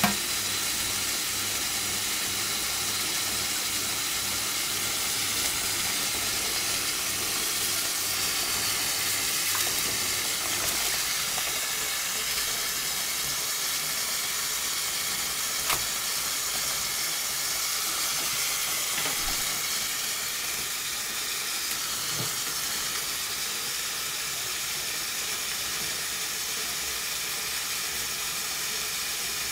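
Kitchen tap running steadily into a stainless steel sink, with an African grey parrot splashing and flapping under the stream. A sharp click right at the start and another about halfway through.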